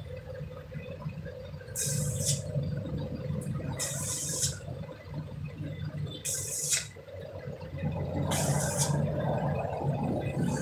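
Arc welding on a thin sheet-metal tank: four short bursts of sizzling crackle, each about half a second, over a steady low hum. The arc is struck in brief bursts to build up weld on metal that is too thin to run a continuous bead.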